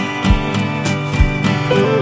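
Background music led by plucked acoustic guitar, with a regular beat.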